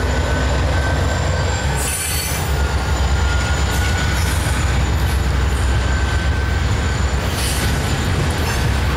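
Norfolk Southern coal train passing at close range, with coal hopper cars rolling by behind the departing diesel locomotives. A steady low rumble runs under a thin, high, steady wheel squeal.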